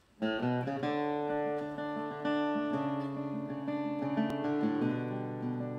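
Steel-string acoustic guitar played solo, starting about a quarter second in: picked notes ringing over sustained bass notes.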